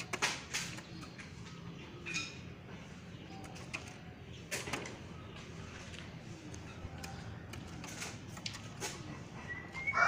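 Asian pied starling in a cage giving a few short, faint chirps among scattered sharp clicks and taps.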